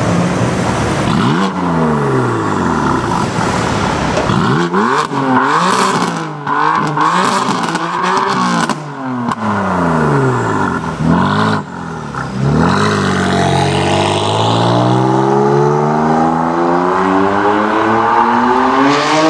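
BMW M4 F82's twin-turbo inline-six through an Akrapovic exhaust, revved several times with the pitch falling away after each rev. In the middle come quick blips with sharp crackles and pops on the overrun, then a long rising run up through the revs in the second half as the car accelerates.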